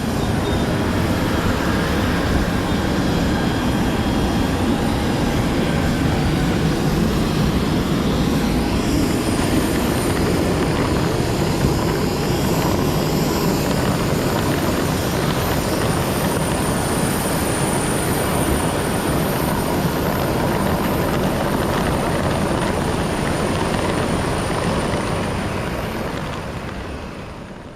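Steady airport apron noise of aircraft and vehicle engines running, with no break, fading out near the end.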